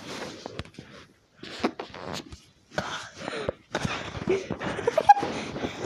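A person's voice making breathy, noisy "aaa" sounds in broken bursts with short pauses, reading out a long string of a's.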